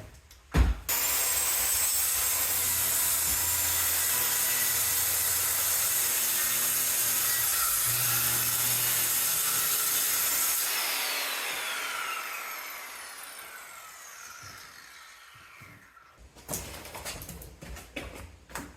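Power saw cutting through wooden flooring, running steadily for about ten seconds, then its motor winding down with a falling whine over several seconds. A sharp knock comes just before it starts, and a few clattering knocks come near the end.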